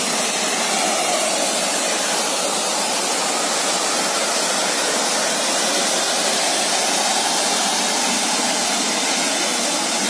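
Water jet from a remote-controlled fire water monitor spraying at full flow: a steady hiss of rushing water and spray.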